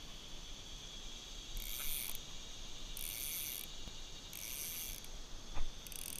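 Fly reel's click-and-pawl ratchet buzzing in four short pulls of about half a second each, about one every second and a half, as line is pulled off the reel. A steady high whine runs underneath.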